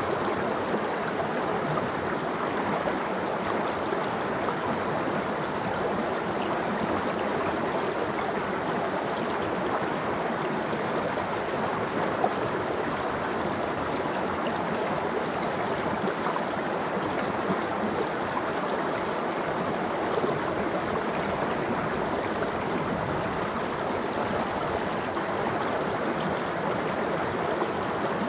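Icy valley stream flowing steadily, an even rush of water without a break.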